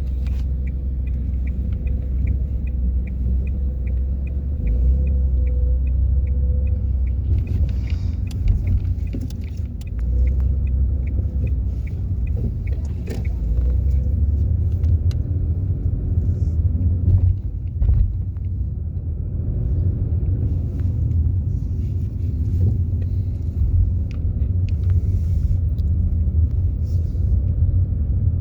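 Car driving, a steady low engine and road rumble. For about the first eight seconds there is a regular ticking, two to three ticks a second, and a few scattered knocks follow later.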